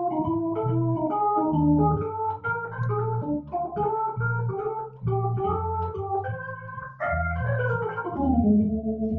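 Organ playing an instrumental passage: a melody line of short, steady notes over a bass line that changes note about twice a second. A quick descending run comes near the end.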